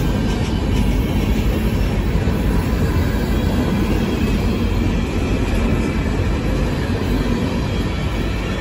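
Freight train cars, mostly empty centerbeam flatcars, rolling past close by: steel wheels on the rails making a steady, loud low rumble.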